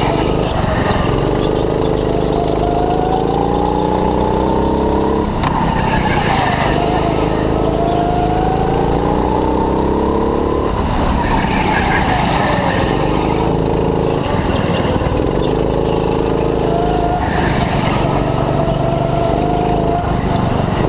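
Go-kart engine running hard, its pitch climbing steadily along the straights and dropping sharply twice as the throttle is lifted for corners, heard from on board the kart. Tyres hiss and squeal through the turns.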